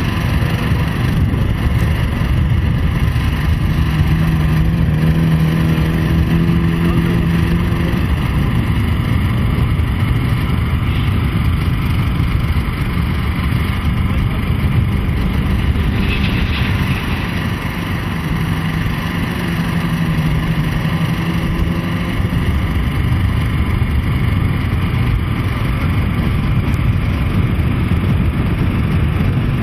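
Engines of a pack of racing off-road vehicles, a continuous loud drone in which a single held engine note stands out for a few seconds, twice.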